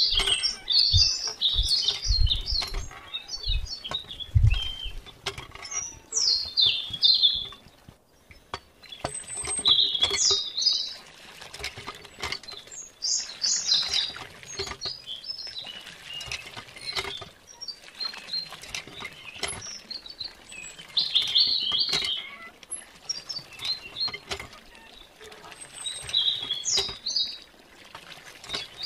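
Small birds chirping and trilling throughout, over a light patter of water splashing from a miniature hand pump into a small pond. A few dull thumps sound in the first five seconds.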